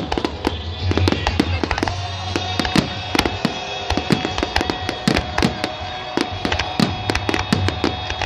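Aerial fireworks shells bursting in quick succession, many sharp bangs and crackles several times a second, with music playing underneath.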